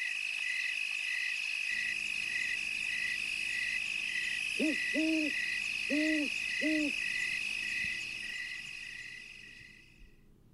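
Night insect chorus of crickets: a steady high chirring with an even chirp about twice a second. An owl hoots four times over about two seconds a little past halfway. It all fades out near the end.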